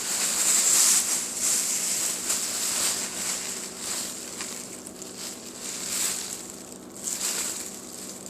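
Plastic bag rustling and crinkling as it is handled, louder at first and easing off over the last few seconds, over a faint steady hum.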